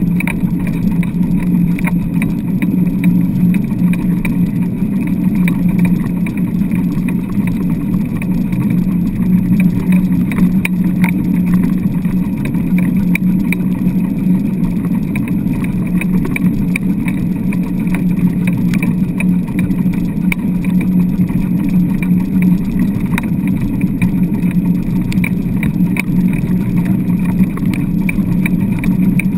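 Steady rumble of a dog-pulled rig rolling over wet beach sand, heard through a camera mounted on the rig frame, with light rattles and clicks scattered throughout.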